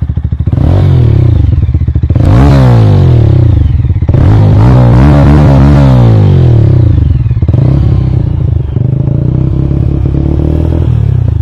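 Mahindra Mojo motorcycle engine heard through its stock exhaust, idling and revved twice, the second rev held longer, then settling back to idle.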